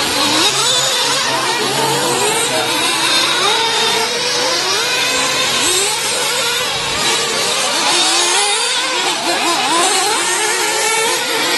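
Several 1/8-scale nitro RC truggies' small two-stroke glow-fuel engines racing at once, a high buzzing that keeps revving up and dropping back with throttle through the corners and jumps.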